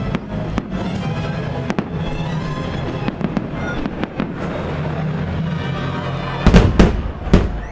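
Fireworks going off over the display's accompanying music, with scattered sharp pops. A cluster of loud bangs near the end is the loudest part.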